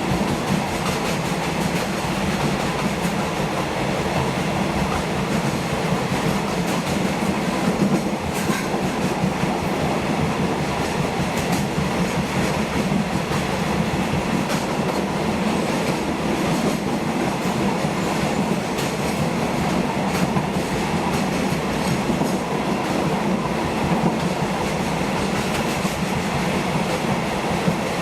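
Moving train running steadily over the track: a continuous rumble of wheels on rails, with scattered sharp clicks as the wheels pass over rail joints.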